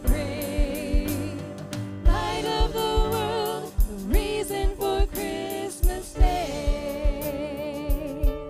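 Mixed vocal quartet of two men and two women singing a Christmas worship song in harmony into microphones, over an accompaniment with a steady drum beat. Near the end they hold a note with vibrato.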